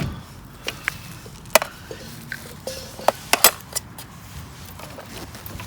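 A few short, sharp clicks and knocks at irregular intervals, with a quick double knock about three and a half seconds in, over a low steady background.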